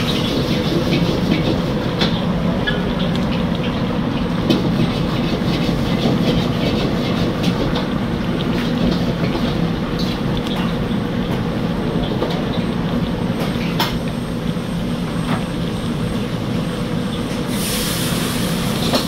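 Steady rumble and hum of a commercial gas wok burner under a huge wok of beef and tripe in broth, with the broth bubbling and popping in small clicks. A hiss comes in near the end.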